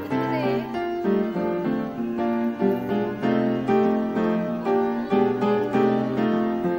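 Background instrumental music: a quick run of plucked-string notes.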